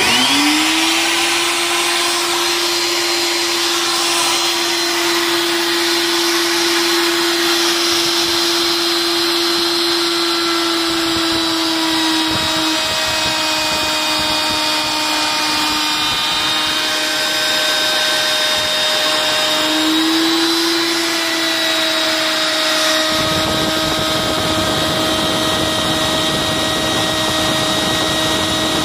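Electric router in a router table spinning up to full speed and running with a steady high whine. Its pitch sags a little for several seconds in the middle, then climbs back.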